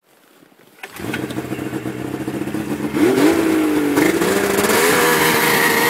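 A 1996 Ski-Doo Formula III snowmobile's Rotax 600 two-stroke engine starts up about a second in and runs, then revs up about three seconds in and holds at a higher, steady speed.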